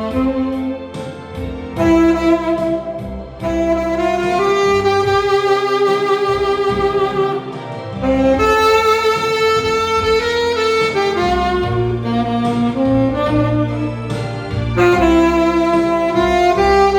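Tenor saxophone playing a slow, soft melody in long held notes over a backing track with bass and strings.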